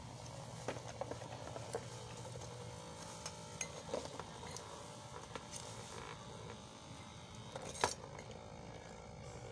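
Light clicks, taps and clatter of a disassembled heat gun's plastic housing, small motor and wires being handled on a wooden workbench, with one sharper click near the end, over a faint low hum.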